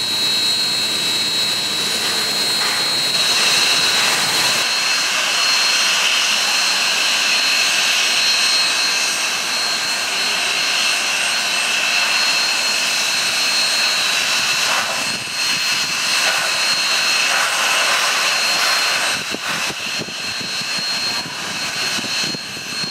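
Union Pacific 844 steam locomotive standing and venting steam: a loud, steady hiss with a constant high tone in it.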